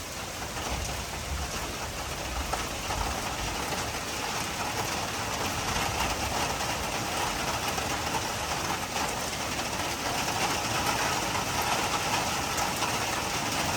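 Steady rain falling, a continuous hiss that grows slightly louder through the stretch.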